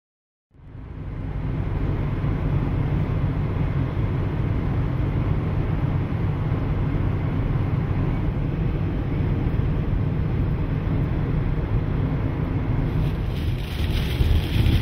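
Steady road and wind noise inside a moving car, fading in about half a second in. Near the end it changes to a hissier sound with rain pattering on the windshield.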